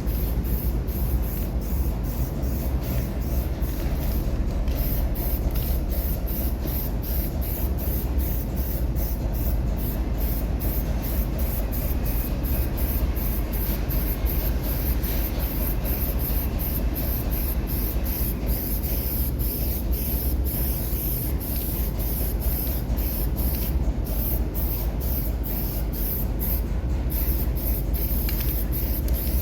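Compressed-air paint spray gun hissing steadily as paint is sprayed onto a repaired bus body panel.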